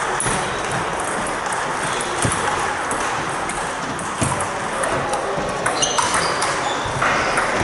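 Table tennis balls clicking off bats and tables in irregular scattered ticks, from several tables in play at once, over a steady background murmur of a busy hall.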